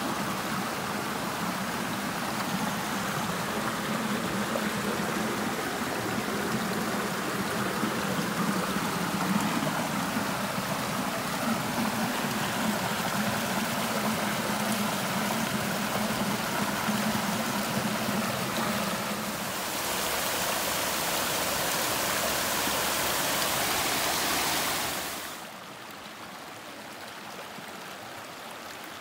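Small rocky stream rushing and splashing over stones and little cascades. Near the end it drops suddenly to a quieter, softer flow of water.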